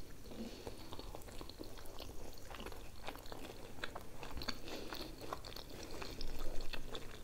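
Close-up chewing and biting of fried potato wedges: many small, soft crunches and wet mouth clicks, a little louder near the end.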